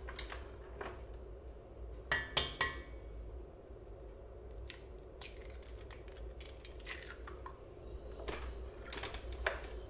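An egg being cracked on the rim of a stand mixer bowl: a quick cluster of sharp taps with a brief ring about two seconds in, followed by scattered light clicks and clinks of shell against the bowl.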